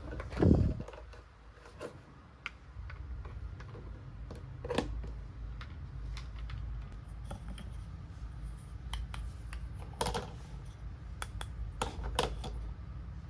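Small plastic toy kitchen pieces being handled: scattered clicks and light taps, with a louder thump about half a second in.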